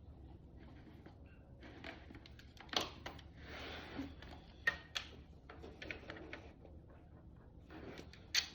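Handling of a motorcycle helmet and its ear speakers: scattered sharp clicks and taps on hard plastic, with a short rustling scrape a few seconds in as the pieces are pressed into the ear pockets.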